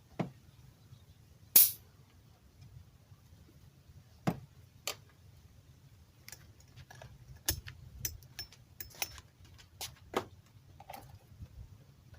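Scattered sharp metallic clicks and knocks from hand tools and a compression gauge being handled at the engine, with one short, loud burst about a second and a half in.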